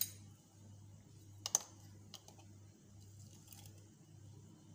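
A few faint, scattered clicks and taps over a steady low hum.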